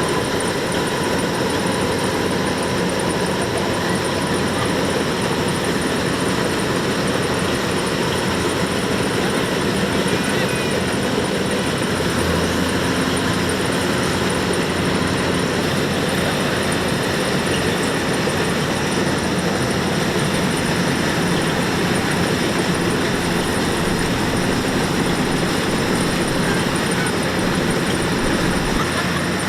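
Kubota DC-105X combine harvester's diesel engine and threshing machinery running steadily as the machine harvests rice.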